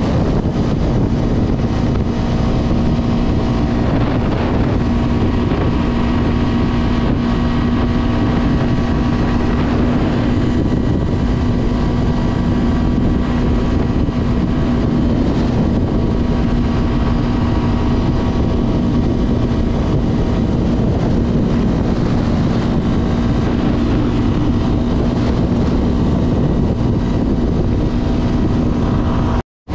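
Honda CB Twister 250F single-cylinder engine running at a steady cruising speed, with heavy wind rush on the microphone. The sound drops out for a moment near the end.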